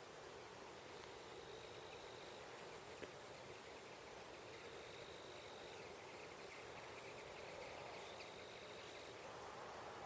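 Faint, steady rush of a slow-flowing marsh stream. Three thin, high held tones, each about a second long, sound over it about a second in, midway and near the end.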